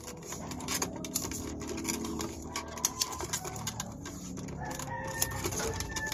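Black vinyl electrical tape, 3M, being peeled off the roll and wound around a wire splice, with a crackling peel and many small clicks. Birds call in the background, mostly in the second half.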